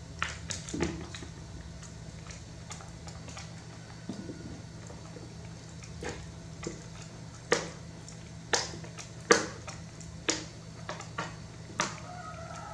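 Irregular sharp clicks and taps while a baby monkey is spoon-fed a snack, about a dozen of them, loudest in a cluster about two thirds of the way through, over a steady low hum.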